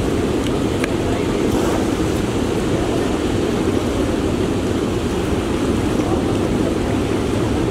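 Steady, loud rushing noise of wind and water at the shore's edge, even throughout with no distinct events.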